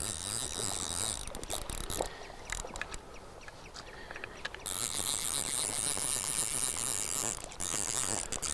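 Fly reel's click-and-pawl ratchet rattling while a hooked trout is played, line going on and off the reel. The fast rattle drops out a couple of seconds in, with a few separate clicks, and comes back about two seconds later.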